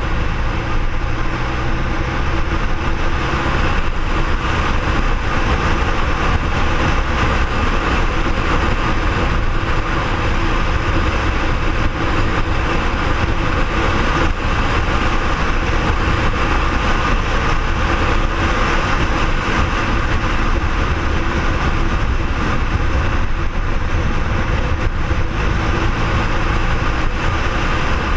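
BMW R1200R's boxer-twin engine running at a steady cruise while riding along an open road, with a steady rush of wind and road noise over it.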